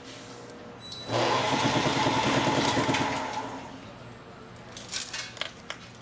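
Restored vintage wiring harness taping machine starting up about a second in. Its rotating tape head and geared conveyor run at full speed with a fast, even mechanical rattle, then die away three to four seconds in, and a few light clicks follow.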